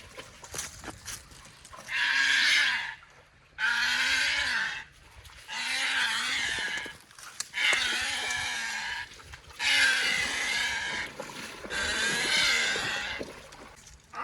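An animal calling six times, each call a hoarse, drawn-out cry of about a second, repeated roughly every two seconds.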